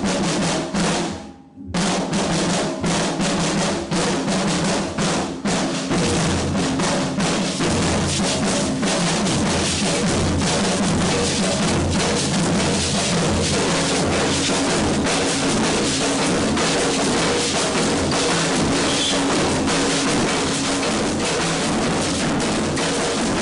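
Maracatu percussion ensemble playing: alfaia bass drums with snare drums in a dense, steady rhythm. The drumming drops out briefly about a second and a half in, then comes back.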